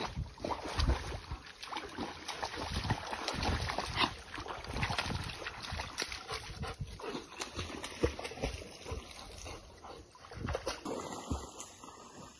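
Two dogs splashing and wading through a shallow creek as they play, with irregular splashes and sloshing water. The splashing fades toward the end as one dog walks out onto the mud.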